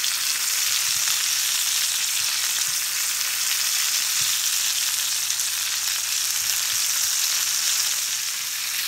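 Ribeye steak frying in bubbling butter in a pan: a steady sizzling hiss.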